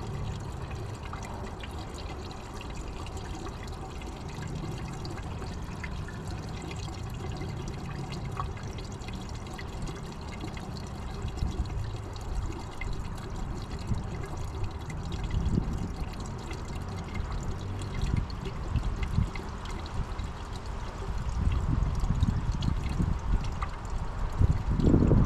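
Diesel fuel trickling and pouring steadily into the mini skid steer's fuel tank. Louder low knocks and handling noise come in near the end.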